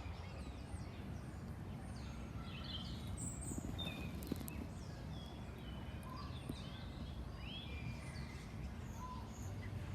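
Wild garden birds singing and chirping: many short, scattered calls and quick up-and-down whistles from several birds, over a steady low outdoor rumble.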